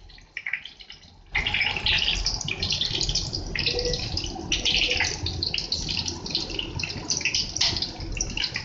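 Papri dough disc frying in hot ghee in a pan: a crackling sizzle that jumps up suddenly just over a second in and keeps on. The papri is being fried until brown.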